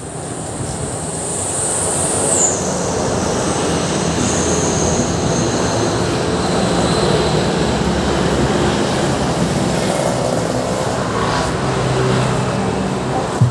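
Steady rushing noise with a high whistle that drops in pitch about two and a half seconds in, played through an active speaker under test.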